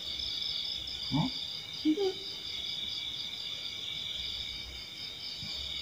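Steady high-pitched insect chorus of several thin, pulsing tones, with two short voice sounds about one and two seconds in.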